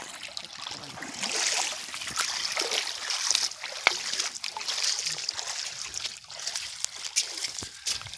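Feet wading through shallow water over a stony riverbed: steady splashing and sloshing, with a few sharp clicks of pebbles knocked underfoot.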